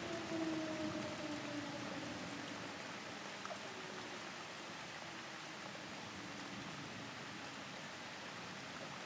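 Air raid siren winding down, its pitch falling slowly as it fades away over the first few seconds, over steady rain.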